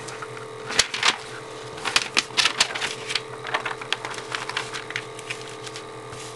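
Irregular small clicks, crackles and taps of adhesive vinyl decal pieces and transfer tape being handled, over a faint steady hum.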